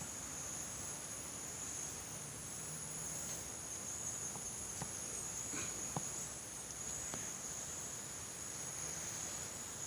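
Insects trilling steadily in a continuous high-pitched drone, with a few faint ticks in the middle.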